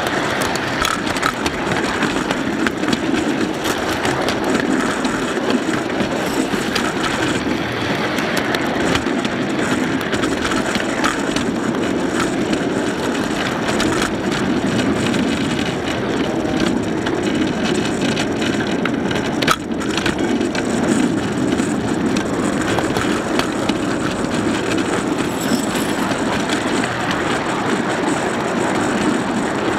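Steel wheels of a 7.5-inch gauge live-steam train's freight cars rolling on the rails: a steady rumble with frequent irregular clicks and rattles, and one sharper knock about two-thirds of the way through.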